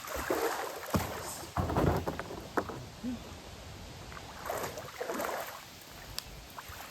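Small paddle boat being paddled off into the river: irregular water swishes and splashes from paddle strokes, with heavier thuds about a second or two in and a few sharp knocks.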